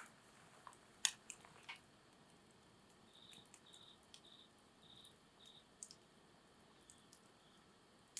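Wood campfire crackling quietly: sparse sharp pops and snaps from the burning wood, the loudest about a second in. A faint run of five short high chirps sounds in the middle.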